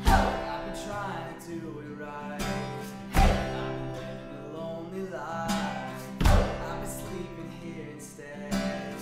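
Background music with sustained tones and a strong low beat about every three seconds.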